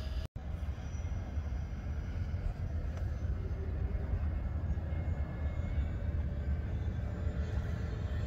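Twin electric motors and propellers of an FMS F7F Tigercat RC model plane droning faintly in flight, over a steady low rumble. The sound drops out for an instant just after the start.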